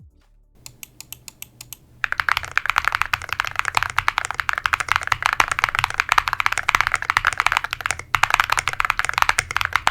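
Typing sound test on a 65% Alice-layout ergonomic mechanical keyboard (Record Alice) with all stock foams, tall SA profile keycaps and pink switches, built for a deep, thocky sound. A few separate keystrokes come first, then fast continuous typing from about two seconds in, with a brief pause about eight seconds in.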